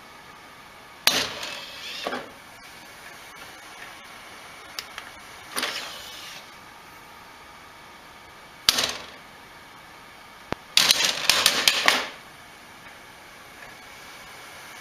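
A white cable scraping and rattling against a wooden floor and dresser as a cat bats and tugs at it. It comes in a few short bursts, then a quick run of rattles about eleven seconds in.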